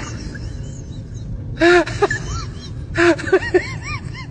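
A young child crying in short, wavering sobs: two bouts, the first about a second and a half in and the second about three seconds in, over a steady low room noise.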